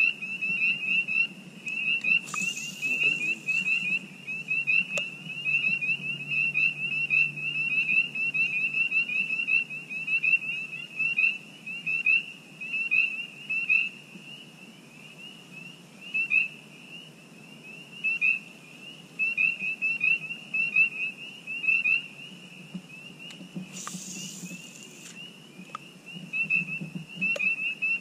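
A dense chorus of frogs, many short high peeping calls overlapping without a break. Two brief hisses come about two seconds in and near the end.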